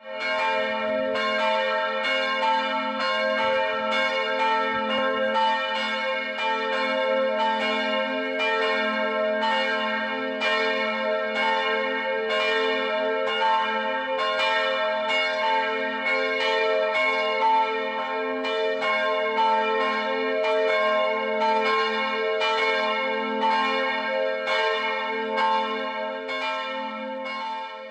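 Church bells pealing: several bells swinging and striking in an overlapping, uneven pattern, somewhat more than one strike a second, their tones ringing on under each new strike.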